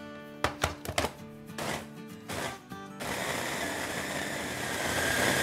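Food processor grinding raw chicken breast with spices into mince: a few clicks and knocks and short pulses, then from about three seconds in the motor runs steadily with a high whine.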